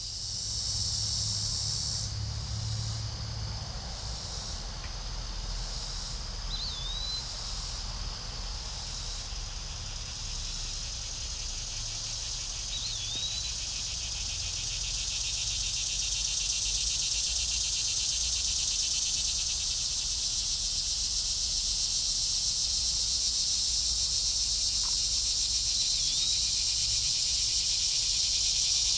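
Dusk chorus of crickets and other insects trilling steadily, one singer pulsing rapidly, others calling in short on-off spells early on; the chorus grows louder over the second half. Three short high falling chirps sound over it, with a low rumble underneath.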